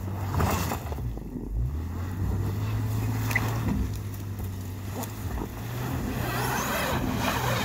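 Subaru Outback engine running under throttle while its tires spin in deep snow without grip, the zip ties strapped on as makeshift snow chains failing to give traction. A steady engine hum runs under the hiss of spinning tires and thrown snow, which grows louder near the end.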